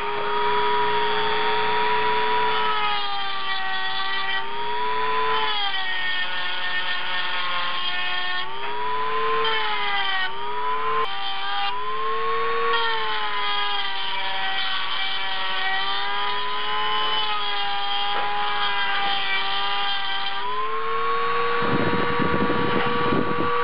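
Handheld electric rotary tool with a pink grinding stone running at a steady high whine, its pitch sagging and recovering again and again as the stone is pressed into and eased off the cast-iron port of a Mazda 13B rotary engine's GSL-SE iron, smoothing casting flash and port transitions. Near the end the pitch steps up and holds, with a short burst of rough noise.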